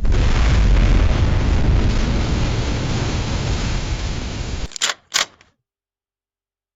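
A loud, steady rumbling hiss, heaviest in the bass, that cuts off abruptly after about four and a half seconds. Two sharp camera-shutter clicks follow, about a third of a second apart.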